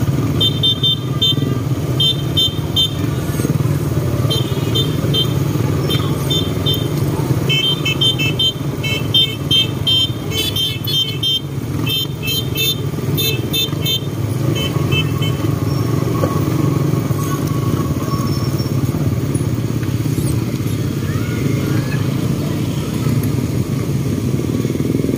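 Several small motorcycles running together at low speed in a group ride, a steady engine and road drone. During roughly the first fifteen seconds, clusters of short high-pitched beeps sound over it, coming thick and overlapping for several seconds just before the beeps stop.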